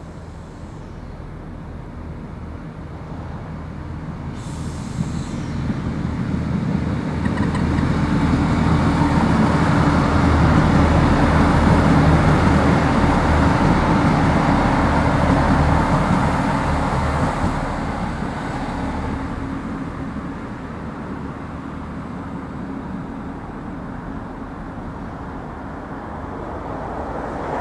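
Irish Rail 29000 class diesel multiple unit passing close by: the drone of its diesel engines and the rumble of its wheels build up, peak for several seconds in the middle, then fade as it moves away.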